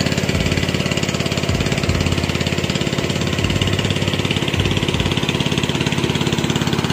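Engine-driven water pump running loudly and steadily with a fast even firing beat as it pumps a pond nearly dry.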